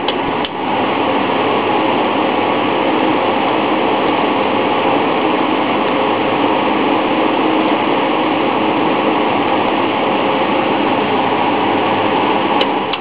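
1950s General Electric All Purpose 10-inch fan (Cat. F11A1) clicked over to high speed about half a second in, then running steadily with a loud rush of air and motor whir. Near the end another click switches it off and it begins to spin down, the sound fading.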